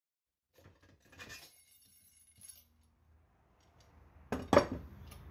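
A few faint metallic clinks, then a louder metal clank about four and a half seconds in, from the motorcycle wheel being handled on a manual tyre changer.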